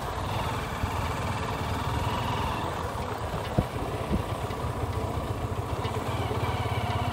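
Hero Karizma R's single-cylinder engine running steadily at low revs, with a sharp knock about three and a half seconds in and a lighter one half a second later.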